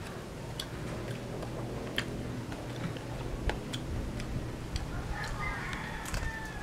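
Eating noises: scattered sharp clicks and ticks of cutlery against a plate and of chewing roast pork. Near the end comes a faint drawn-out call, like a distant rooster crowing.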